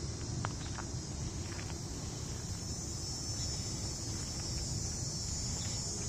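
Steady high-pitched drone of a summer insect chorus in tall streamside vegetation, with a few light clicks in the first second.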